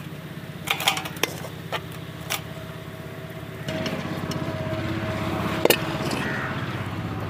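A steady low engine hum that grows a little louder about halfway through. In the first couple of seconds there are a few sharp clicks of a metal spoon against steel cookware as the dish is spooned out.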